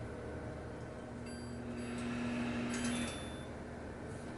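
Microwave oven running with a steady low hum that stops about three seconds in, along with a few light clicks.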